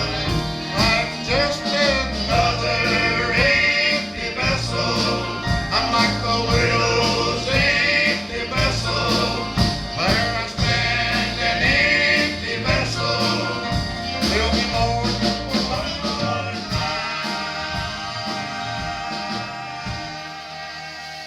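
Gospel quartet music: voices over instrumental accompaniment with a steady bass and beat, getting quieter over the last few seconds.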